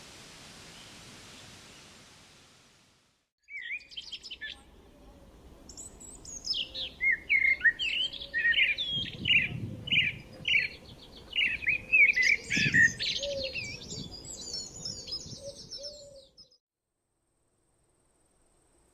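Several songbirds chirping and trilling over a faint outdoor background, starting about three seconds in and stopping abruptly a few seconds before the end. Before it, a steady hiss fades out.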